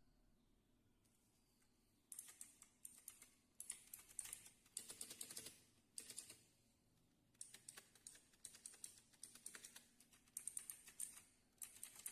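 Faint keystrokes typed at an irregular pace on a DareU EK87 V2 mechanical keyboard, starting about two seconds in.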